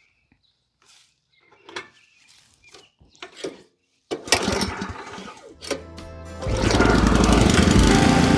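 A gasoline garden tiller's engine starting up: it sputters unevenly about four seconds in, then runs steadily and loudly from about two-thirds of the way through. Background music comes in with it.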